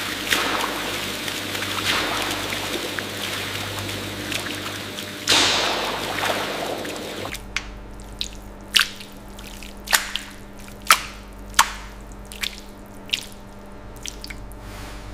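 Rinse water pouring steadily from a spout onto cheese curds in a stainless vat. About seven seconds in it cuts to single drips and small splashes of whey falling back into the tray, roughly one a second.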